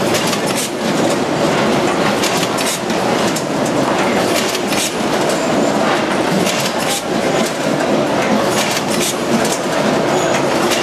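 C-Pack VAC 929 net-bagging machine and its conveyor running: a continuous mechanical clatter with frequent sharp clicks.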